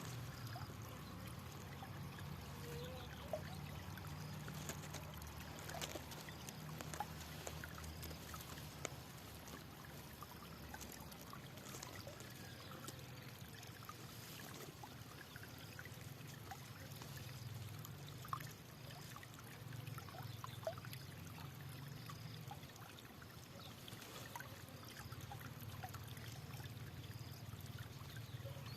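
Flowing water trickling steadily, with many small sharp ticks and splashes scattered through it.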